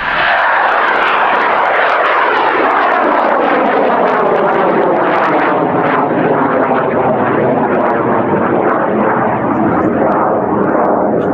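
High-power rocket motor firing as the rocket climbs away. The sound comes in suddenly at the start and stays loud and steady, its tone falling slowly throughout.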